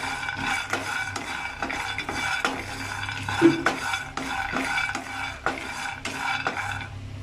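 Spatula stirring and scraping peanuts, fenugreek and cumin in a pan as they dry-roast, about two strokes a second.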